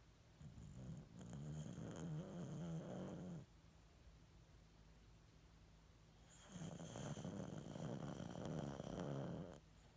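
American cocker spaniel snoring: two long snores, the first starting about half a second in and the second about six seconds later, each lasting around three seconds.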